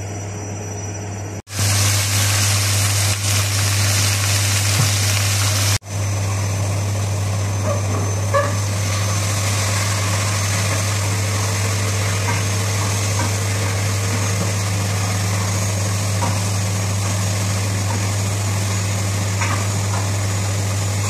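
Kitchen range-hood extractor fan running: a steady low hum under an airy rushing hiss, with a few faint light clicks. The sound drops out abruptly twice in the first six seconds.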